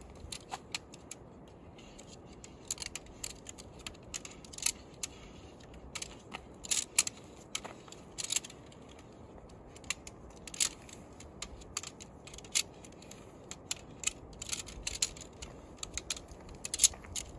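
Metal tent pole sections being pulled apart and folded up by hand, the segments clicking and clinking against each other in many short, irregular, sharp clicks.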